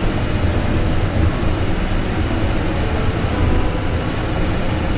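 Steady low rumble of a tour bus's engine and road noise, heard from inside the moving bus.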